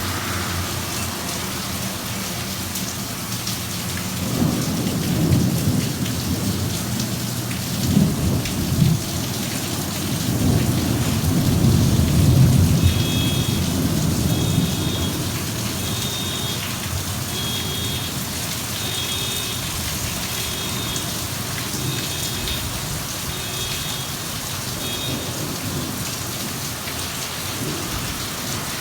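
Steady heavy rain falling, with a long roll of thunder that builds a few seconds in, peaks twice and fades away. Through the second half, a faint high chirp repeats about once a second.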